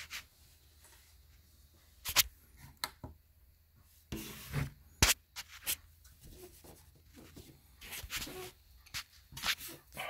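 Scattered sharp clicks, taps and a brief rub at low level, the sharpest click about five seconds in: handling noise from a handheld camera being moved around.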